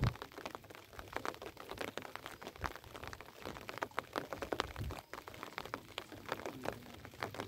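Irregular patter of water drops and small splashes on shallow floodwater, with two brief low thumps.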